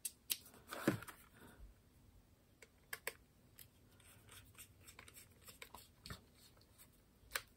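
Faint clicks and light scratching of a small hand screwdriver with a Phillips bit turning a screw into the plastic back case of a Casio fx-300ES calculator, with a few sharper clicks from the tool and case being handled.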